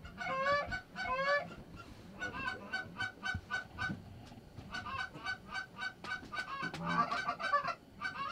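Canada geese honking: a few drawn-out honks, then from about two seconds in a fast run of short clucks, about five a second, busiest around seven seconds in.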